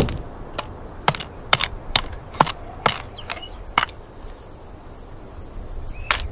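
Irregular sharp taps and knocks, about eight of them with uneven gaps, of a hand tool striking wood or stone, over a faint outdoor hiss. The sound is AI-generated, part of a text-to-video result.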